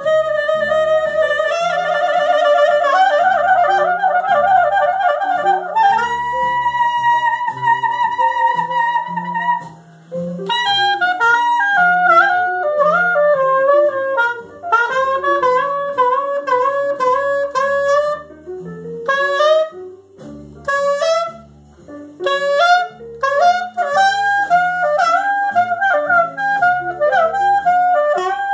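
Saxophone playing a slow melody, long held notes with vibrato for the first ten seconds, then a quicker line of moving notes with short breaks, over a backing track with a stepping bass line.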